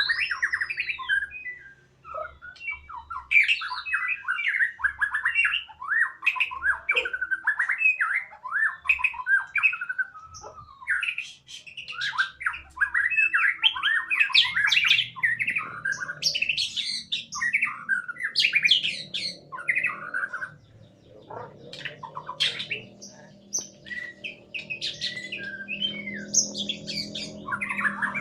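Songbirds chirping and squawking in a dense, continuous chatter of rapid calls, with a faint steady hum underneath in the second half.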